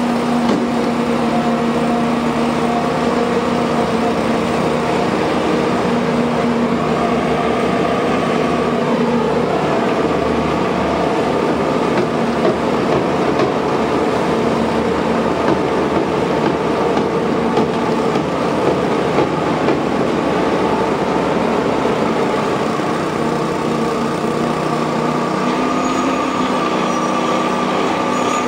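Engine of a walk-behind laser screed machine running steadily under load while its vibrating screed head levels fresh concrete, a continuous mechanical drone whose pitch shifts about a third of the way in and again near the end.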